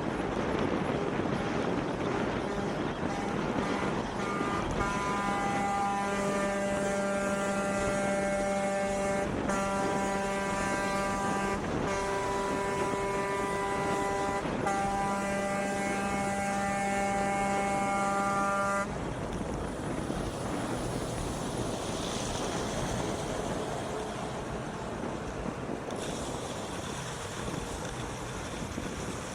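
Truck horn held down in one long blast of about fourteen seconds, starting a few seconds in and broken by three brief gaps. Steady wind and road noise continue underneath and after it.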